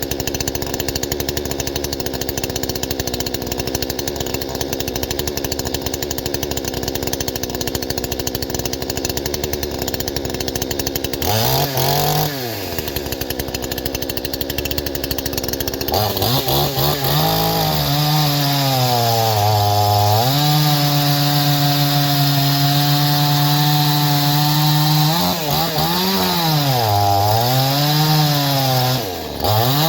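A 49.3 cc Proyama chainsaw, a Chinese two-stroke clone in stock unported form, running with an upgraded muffler in place of its catalytic converter muffler. It runs steadily for about eleven seconds and revs up briefly. From about sixteen seconds it runs at high revs while cutting wood, the pitch sagging and recovering a few times near the end.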